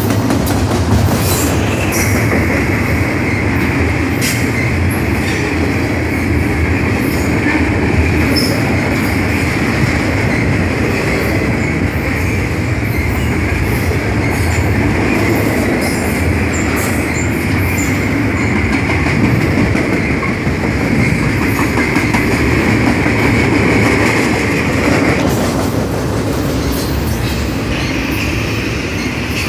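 Double-stack container freight train passing close by at speed: a loud, steady rumble of wheels on rail. A continuous high wheel squeal sets in about two seconds in, stops a few seconds before the end and comes back faintly.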